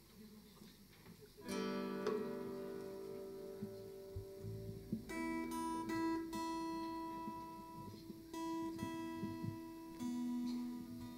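Acoustic guitar strummed on stage: a chord about a second and a half in is left to ring, then more chords and ringing notes follow from about five seconds in. This is the band checking and tuning before a song.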